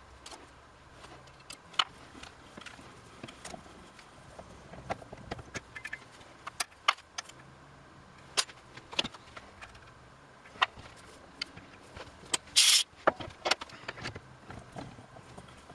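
Scattered sharp metallic clicks and clinks of small steel parts and hand tools being handled, with one short, louder rasping burst about three-quarters of the way through.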